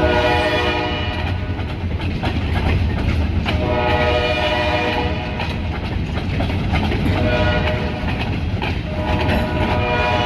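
Freight locomotive horn sounding the grade-crossing signal, two long blasts, a short one and a long one that is still sounding at the end, over the steady rumble of the locomotive and its cars on the rails.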